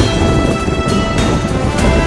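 Background music: instrumental theme with held notes and a steady percussive beat.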